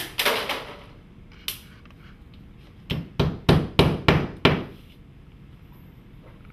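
Hammer nailing a faux-stone cladding panel to a sheathed wall: a few separate knocks, then a run of six quick blows, about three a second.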